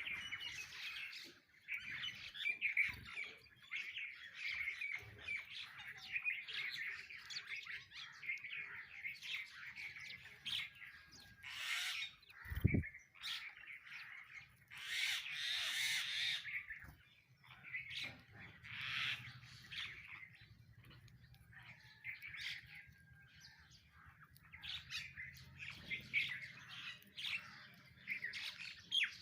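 A flock of sparrows chirping busily and continuously, mixed with harsher squawking calls from mynas. A single sharp knock comes about halfway through.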